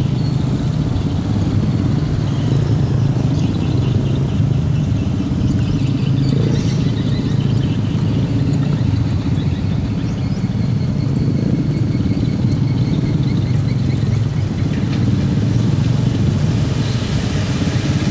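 Diesel engine of an orange dump truck running steadily at raised revs, driving the hydraulic hoist that lifts the tipper body. Near the end a hiss rises as the load of earth starts sliding out of the tipping bed.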